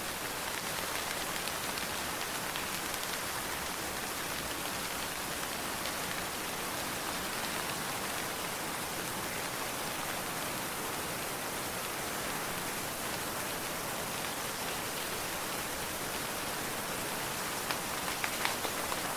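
Steady rain falling, an even hiss of drops on surfaces, with a few sharper, louder drop ticks near the end.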